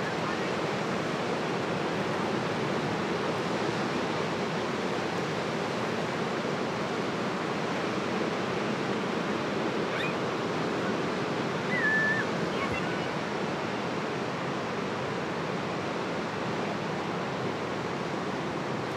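Surf washing steadily over a rocky shore, with a brief high squeak about twelve seconds in.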